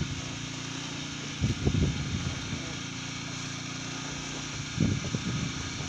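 A boat's engine running steadily, a low hum under a constant hiss, with two brief bursts of voices.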